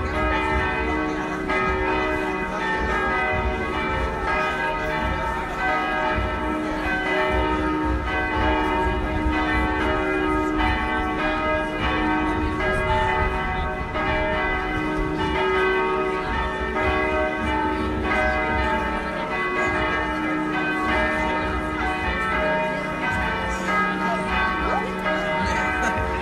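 Marching band playing a tune, with bell-like ringing tones carrying the melody in held notes that change about every second.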